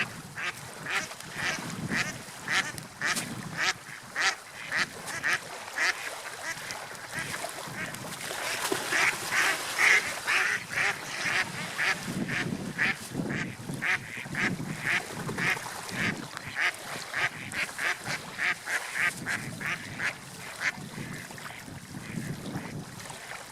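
Birds calling in a long run of short, repeated calls, about three a second, stopping near the end, over a steady rush of wind and water.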